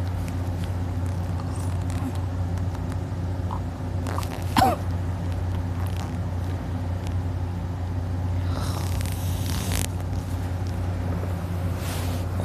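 A sleeping man breathing between snores over a steady low hum: a brief squeaky nasal sound about four and a half seconds in, and a long airy breath near the end.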